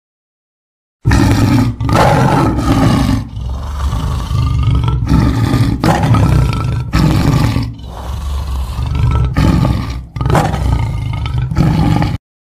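Big cat roaring over and over, a run of loud roars one after another that starts and cuts off abruptly, like an edited-in sound track.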